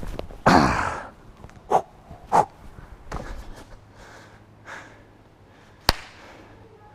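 A man grunting and breathing hard from exertion: one loud exhaled grunt that falls in pitch about half a second in, then short sharp breaths and quieter panting. A single sharp click about six seconds in.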